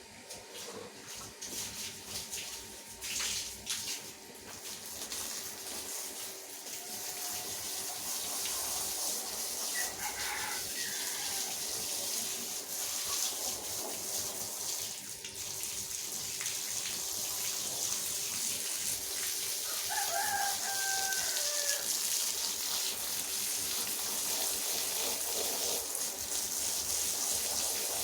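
Steady wet hiss of a carpet being scrubbed with water by a rotary floor polisher, growing louder over the first several seconds. A rooster crows in the background about ten seconds in and again about twenty seconds in.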